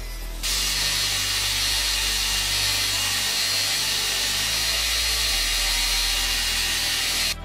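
Belt grinder driven by an electric motor, with the edge of a flat metal plate held against the running abrasive belt: a loud, steady grinding hiss over a low motor hum. It starts abruptly about half a second in and cuts off just before the end.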